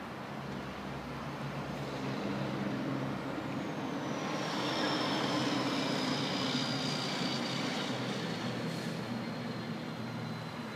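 Engine noise of a passing vehicle, swelling to a peak midway and easing off, with a thin high whine that slowly falls in pitch.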